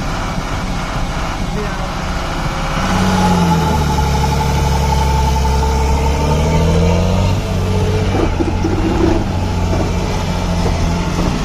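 Truck's diesel engine running close by, its pitch sagging about three seconds in and climbing back a few seconds later.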